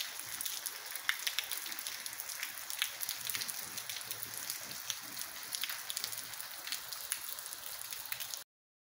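Steady rain falling: an even hiss with many sharp individual drop clicks, cutting off suddenly near the end.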